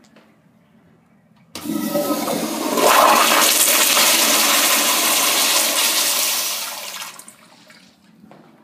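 Crane plumbing fixture flushing: a sudden rush of water that starts about one and a half seconds in, swells, holds for several seconds, then tapers off and stops near the end.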